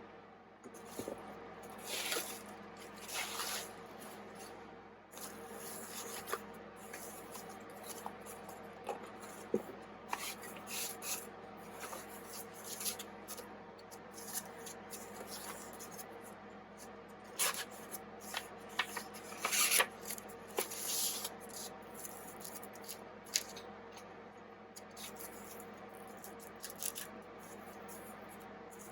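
Irregular rubbing, scraping and rustling as objects are handled, with a few small clicks, over a steady faint hum.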